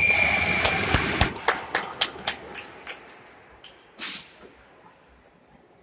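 Noise at an ice hockey rink: a burst of crowd sound with a high steady tone for about a second. Then a quick run of sharp smacks that slow and fade, and one louder smack about four seconds in.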